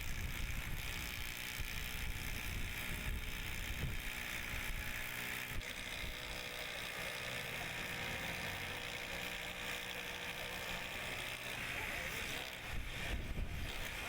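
Steady mechanical running noise: a constant hiss with a faint hum underneath.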